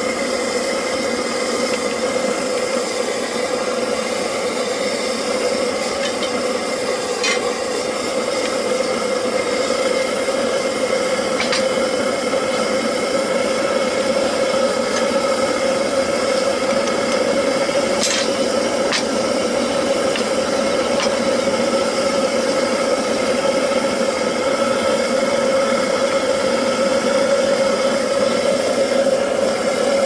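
Homemade waste-oil burner firing the furnace, a steady loud roar with a constant hum in it. A few short metal clinks come around the middle.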